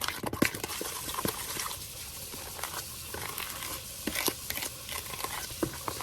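A utensil clicking and scraping against a mixing bowl as wet cookie-dough ingredients with freshly cracked eggs are handled, with many irregular small clicks over a soft scraping hiss.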